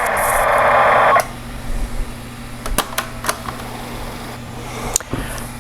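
TRS-80 Color Computer cassette data tone from a CLOAD, heard through the monitor speaker as a dense warbling hiss that cuts off about a second in. Then a few sharp clicks over a steady low electrical hum.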